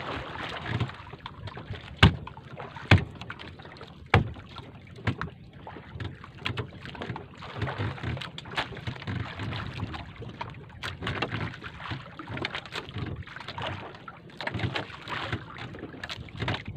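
Wind and sea noise around a small wooden outrigger boat, with sharp knocks about two, three and four seconds in and lighter clicks and taps throughout as a freshly caught tuna is handled in the boat.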